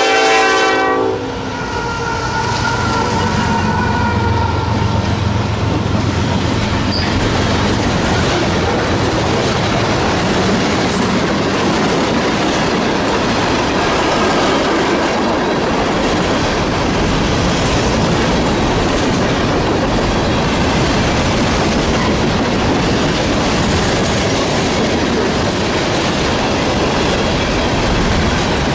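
A Norfolk Southern manifest freight train passing: the lead diesel locomotive's horn cuts off about a second in. The locomotives' diesel engines drone past, then freight cars roll by with steady wheel clatter.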